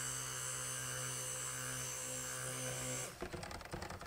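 Cuisinart stick blender running steadily in thick cold-process soap batter, blending it toward trace, then switched off about three seconds in; faint irregular clicks follow.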